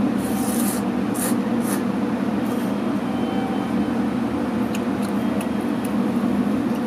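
Ramen noodles slurped from a bowl, several short hissing slurps in the first three seconds, over a steady low mechanical hum.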